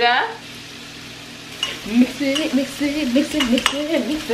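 A spoon stirs and scrapes through mashed sweet potato in a ceramic bowl, with light clicks against the bowl. Green beans sizzle steadily in a pan on the stove. From about halfway a voice hums a wavering tune over it.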